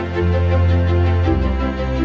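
Instrumental background music of held, sustained notes over a strong bass, which steps down to a lower bass note a little past a second in.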